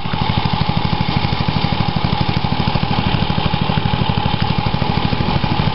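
Dixon ZTR riding lawn mower engine running steadily, with a fast, even pulsing throb.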